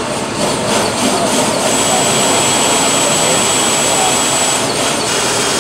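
A motor-driven machine running steadily with a loud rushing noise; a thin high whine comes in about two seconds in and drops out near the end.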